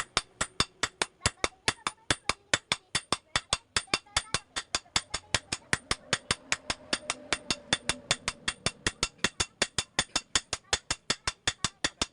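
Hammer striking metal in rapid, even blows, about five a second.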